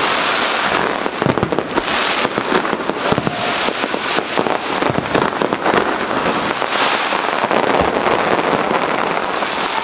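Aerial fireworks shells bursting and crackling in a dense, continuous barrage of overlapping bangs, with no let-up.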